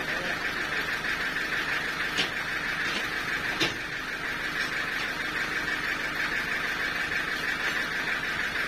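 Portable sawmill running steadily with a continuous whirring hiss, with a couple of short knocks in the first few seconds.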